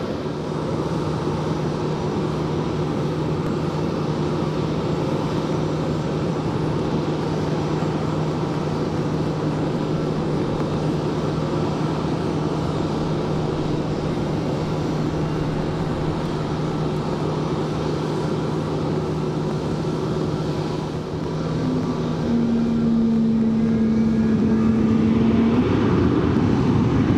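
Heavy rain pouring steadily, with the steady hum of jet airliner engines. About 22 seconds in the jet noise grows louder, with a higher steady tone, as an airliner powers up for its takeoff roll through the spray.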